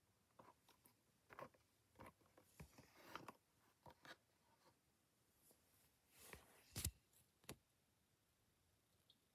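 Faint rustles, crinkles and taps of a cardboard-and-plastic blister card for a die-cast toy car being handled and turned over, with a sharper click near the end.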